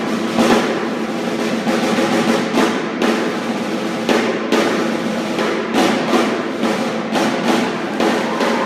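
The flag-wavers' snare drums playing rapid rolls and beats with many dense strikes, in a sports hall.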